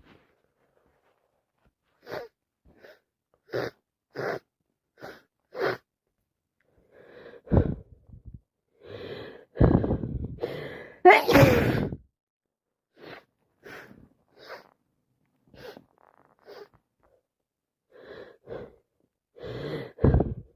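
A woman with a heavy head cold sniffing in short sharp breaths, then gasping in before a run of sneezes: one about seven and a half seconds in, another near ten seconds, and the loudest just after with her voice in it. More sniffs follow, and another sneeze comes near the end.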